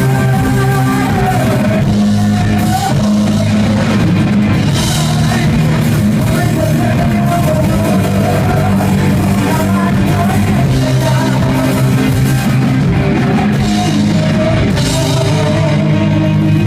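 Live rock band playing: drum kit with cymbal crashes, electric guitar, bass and a singing voice.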